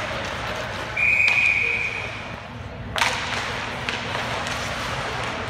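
Referee's whistle blown once, a steady high tone lasting just over a second, stopping play. A sharp knock follows about three seconds in, over steady rink noise.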